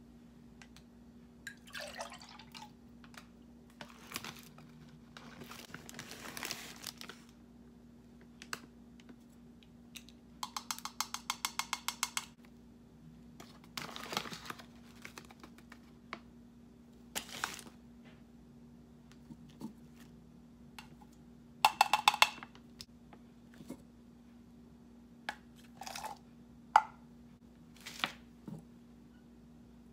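Kitchen handling sounds as smoothie ingredients are measured out: brief rustles and scrapes, a quick run of rapid clicks about ten seconds in, and a few short ringing clinks around twenty-two seconds in, the loudest sounds, over a faint steady hum.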